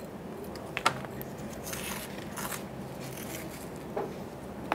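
A thin metal hand tool scraping and picking at sandy soil, with a few sharp clicks, one about a second in and another near the end.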